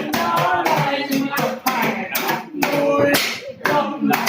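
Singing voices with hands clapping at an uneven beat.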